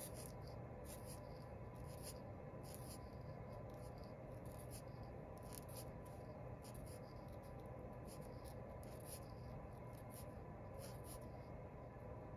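Black fine-point permanent marker drawing short strokes on paper to draw scales: a faint scratch of the felt tip with each stroke, coming irregularly about once or twice a second.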